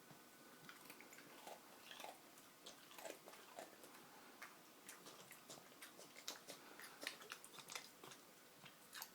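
Boston terrier chewing an animal cracker: a quiet, irregular run of small crunches and mouth clicks.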